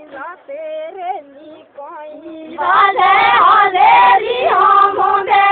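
Women singing together, with melodic held notes; the singing becomes much louder and closer about two and a half seconds in.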